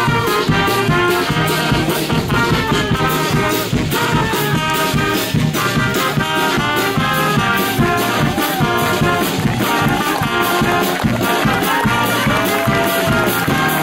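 Brass band music with trumpets and trombones over a steady drum beat.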